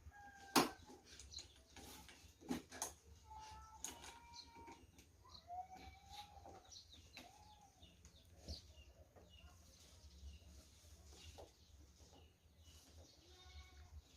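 A few sharp clicks and knocks from parts being handled, the loudest about half a second in, with faint farm-animal calls scattered through the background.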